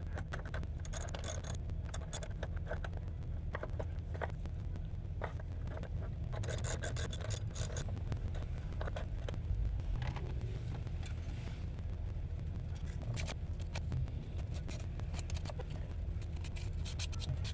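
Intermittent scraping and rubbing of hand tools on metal battery hardware, in clusters of short strokes, over a steady low rumble.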